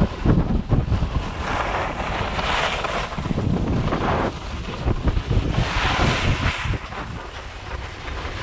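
Wind buffeting a GoPro's microphone during a ski descent, with the hiss of skis sliding and turning on packed snow swelling and fading several times.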